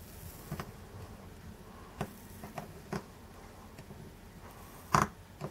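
A few light, scattered clicks and taps from the soldering work on a copper-foiled stained glass panel, the loudest about five seconds in, over a faint low hum.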